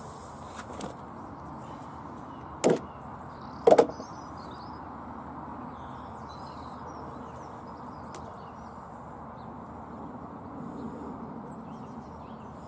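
Steady outdoor background rush with faint bird chirps, broken by two short, sharp scraping knocks about a second apart a few seconds in.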